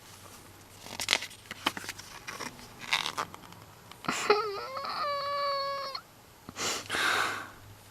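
A woman's high-pitched, drawn-out squeal, whimper-like and held for nearly two seconds, an excited fangirl reaction, followed by a breathy exhale. Before it come a few sharp clicks and rustles of handling.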